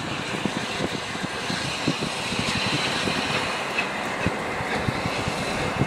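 A train running along the track, its wheels clattering irregularly over the rails under a steady rushing hiss.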